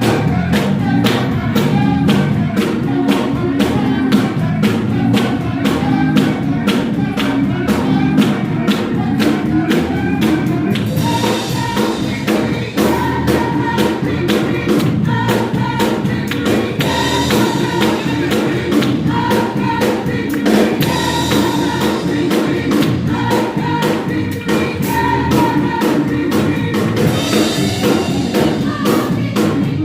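Gospel choir singing together, backed by a drum kit keeping a steady beat.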